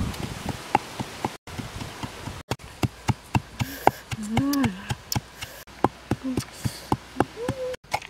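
Wooden pestle pounding chilies and garlic in a clay mortar: a quick run of dull knocks, several a second, with a few short hummed voice sounds in between.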